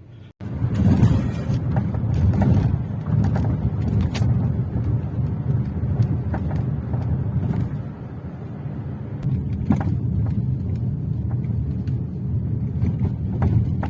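A 2016 Mazda 6 on the move: a steady low rumble of road and tyre noise, with a few short knocks every few seconds. The knocks are typical of the suspension knock the car has had for months.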